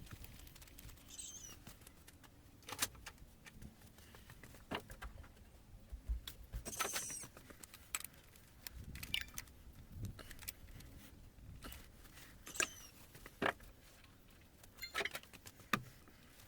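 Scattered clicks, clinks and knocks of hand tools and metal parts during hand work on the engine, about a dozen separate strikes with a few short high squeaks among them.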